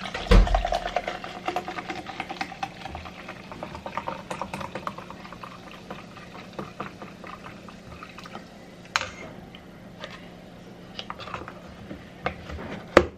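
Orange soda poured from a plastic bottle into a plastic cup, splashing and fizzing as the cup fills. There is a thump right at the start, and a sharp click near the end as the plastic lid goes on the cup.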